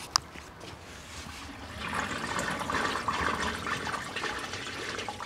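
A sharp click, then a flushed toilet's water rushing through a newly cleared sewer line. The rush swells about two seconds in and slowly tapers, the free-flowing sound of an unblocked drain.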